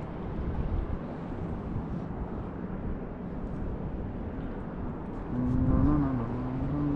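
Steady rushing of the fast-flowing Indus river close by. Near the end a man's low voice is held for about two seconds.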